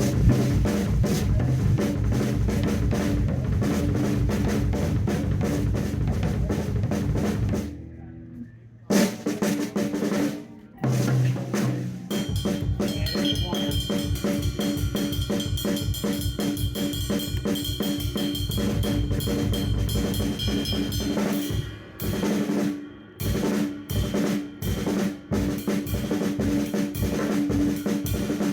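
A drum kit played in busy grooves and fills of bass drum, snare and rim shots. The playing all but stops for about a second, some eight seconds in, and breaks off briefly a few times near the end.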